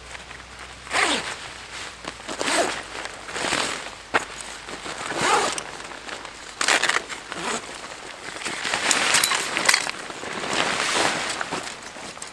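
Camping gear being handled during tent setup: an irregular series of short rustling and scraping strokes, about one a second.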